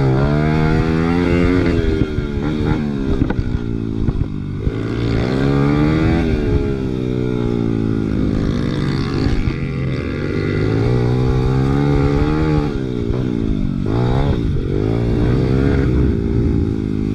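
Big-bore Honda XR100R single-cylinder four-stroke pit bike engine revving up and falling back repeatedly under hard riding, with the pitch climbing and dropping about every two to four seconds and holding steadier in the middle.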